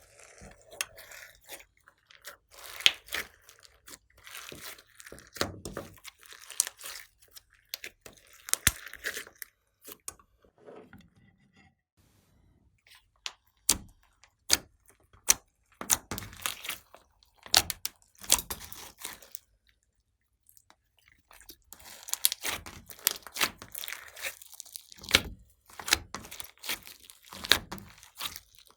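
Hands kneading and stretching glossy slime: irregular sticky pops, clicks and crackles, pausing for a couple of seconds past the middle.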